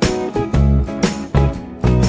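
Background music: plucked acoustic guitar over a steady beat and bass.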